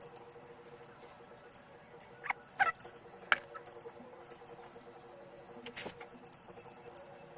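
Plastic Rubik's cube being turned quickly by hand, its layers clicking and rattling in irregular runs of short clicks.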